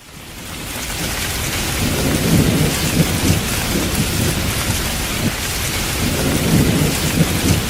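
Heavy rain pouring down in strong, gusting wind, with low rumbling swells in the gusts. It fades in over the first second.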